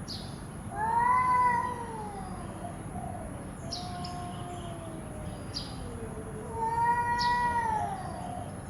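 Cats yowling at each other in a fight standoff. There are two long, wavering howls, one about a second in and another near the end, with a lower drawn-out moan between them.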